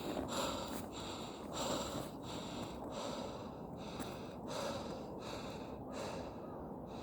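A person breathing hard and sniffing through the nose while climbing a hill on foot, with short noisy pulses about every half second to second from the steps and breaths.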